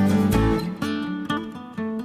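Background music led by acoustic guitar, plucked and strummed with a steady beat.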